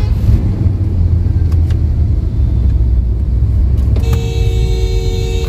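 Steady low rumble of engine and road noise inside the cabin of a Toyota Innova Hycross with the 2.0-litre naturally aspirated petrol engine, cruising. There are two faint clicks about a second and a half in, and a steady pitched tone sounds for about a second and a half near the end.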